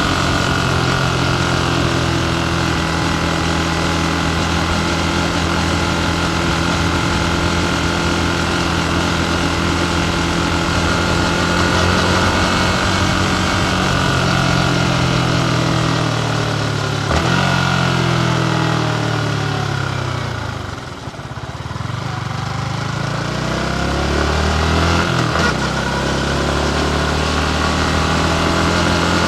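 Yamaha MT15's single-cylinder engine running on the move, under a steady rush of wind. About two-thirds of the way in the engine note falls as the bike slows almost to idle, then climbs again as it picks up speed, with a short knock on each side of the dip.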